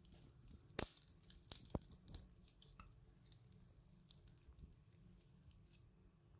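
Near silence broken by faint creaks, clicks and rustles from a wooden idiyappam (string-hopper) press being squeezed, pressing dough into strings onto woven cane trays. Two sharper clicks stand out, one just under a second in and another just under two seconds in.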